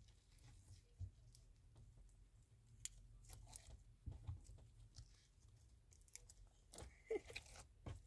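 Slime being handled, giving faint, scattered crackles and clicks with a couple of slightly louder pops near the end.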